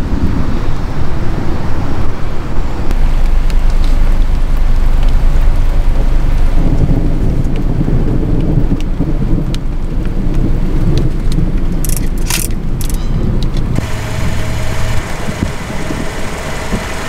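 Loud, continuous low rumbling noise with a short cluster of sharp clicks about twelve seconds in; the sound changes abruptly about fourteen seconds in.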